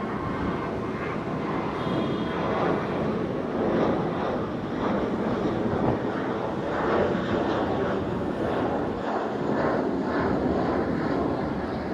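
Jet airliner engines: a steady rushing rumble that swells and wavers in loudness.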